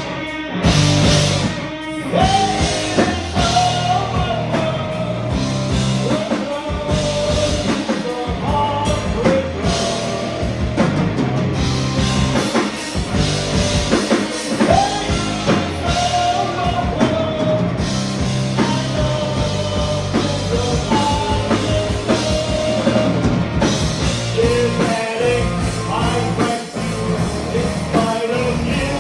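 Rock music playing: drum kit and guitar with a singing voice over them.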